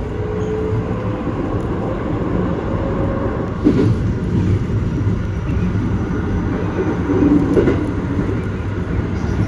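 Keikyu electric train running, with the steady rumble of wheels and running gear and a faint motor whine that rises slightly in pitch over the first few seconds. Two brief louder sounds stand out, about four and seven and a half seconds in.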